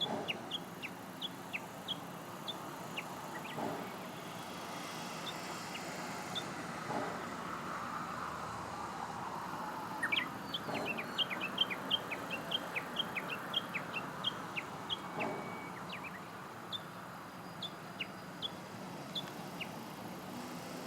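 Japanese bush warbler giving short, sharp high chirps, scattered at first and then in a quick run of many calls in the middle, over a steady background hum.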